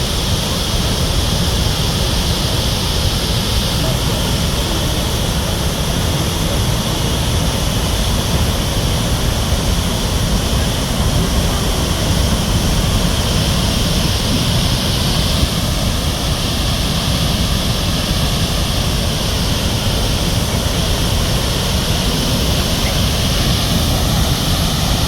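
Murchison Falls on the Nile River: a great volume of water pouring down with a loud, unbroken rush and a deep rumble underneath.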